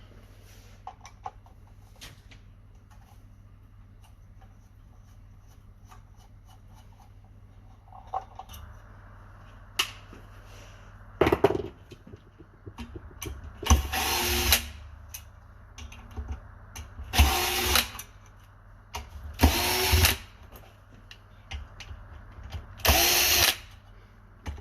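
Electric drill-driver backing screws out of an LED bar's housing in five short runs of under a second each, starting about halfway through, its motor pitch bending up and down within each run. Light handling clicks come before the first run.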